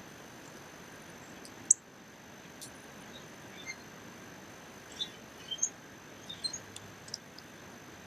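Small birds chirping: one loud, sharp high chip about two seconds in, then a scatter of short high chirps in the second half, over a steady outdoor hiss.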